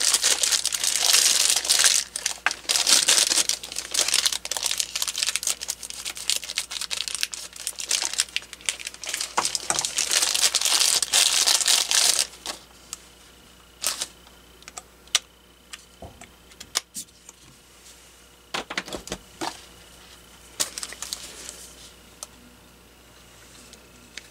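Thin plastic packaging bag crinkling and rustling loudly as it is handled, for about the first twelve seconds. After that it is much quieter, with scattered clicks and taps from handling the parts and a faint steady high tone.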